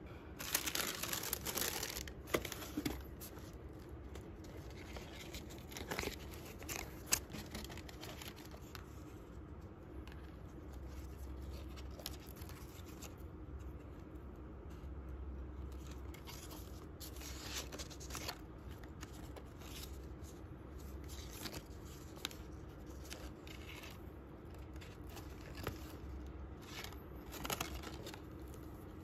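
Tissue paper rustling and crinkling as it is handled in a cardboard shoe box, in irregular bursts, loudest in the first couple of seconds and flaring again now and then.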